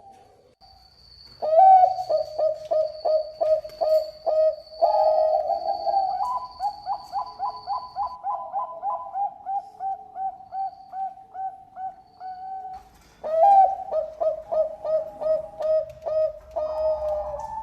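Zebra dove (Bangkok perkutut) singing: long runs of rapid, evenly repeated cooing notes, about three to four a second. A second run starts about thirteen seconds in, after a short pause.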